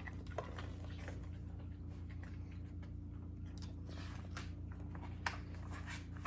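Quiet room tone with a steady low hum and a few faint clicks and rustles, and one sharper tap about five seconds in.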